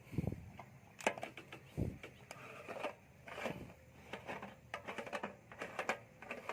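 Irregular clicks, knocks and short rattles of parts being handled on a small hand tractor whose engine is not running, with a dull thump just after the start and another about two seconds in.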